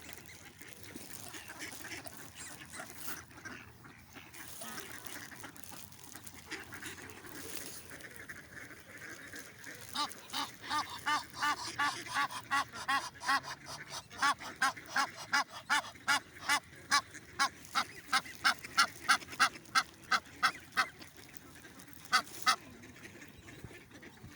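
A water bird honking in a fast run of short, nasal calls, about three a second, starting about ten seconds in and stopping a few seconds before the end, with two more calls after a short pause. Fainter calls of other birds sound underneath.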